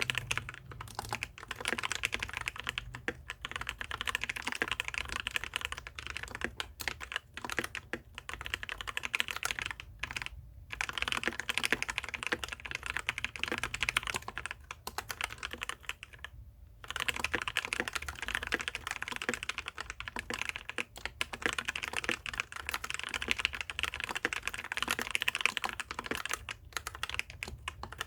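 Fast, continuous typing on a Maxtill Tron G400K mechanical keyboard with Outemu brown switches, spray-lubed with Super Lube grease, lubed stabilizers and no sound-dampening foam. There are brief pauses about ten and sixteen seconds in.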